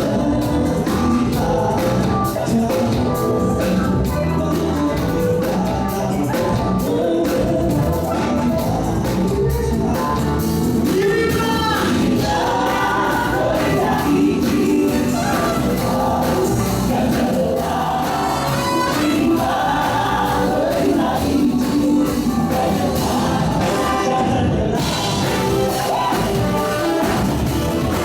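Live gospel band playing a groove-style hymn arrangement, with a group of singers.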